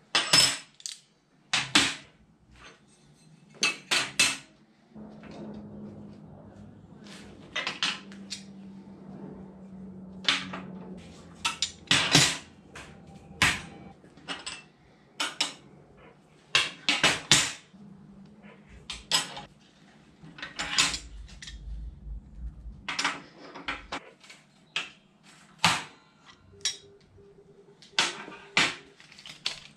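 Steel workpieces and locking C-clamp pliers clanking and clicking against a steel welding table as parts are laid out and clamped: about twenty sharp metallic knocks at irregular intervals, with quieter handling noise between them.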